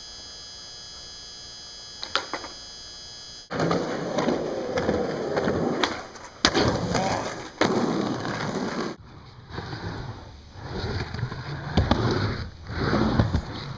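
A steady electrical hum with a few light clicks, then skateboard wheels rolling on concrete. A sharp clack comes about six and a half seconds in and another about a second later, as a trick down a set of stairs is popped and landed. After that, skateboard wheels roll back and forth on a plywood mini ramp, swelling and fading with each pass, with a couple of loud board knocks near the end.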